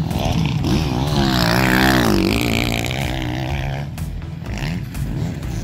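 Motocross bike engines running and revving on the track, the pitch sweeping up and down between about one and three seconds in, then running steadier.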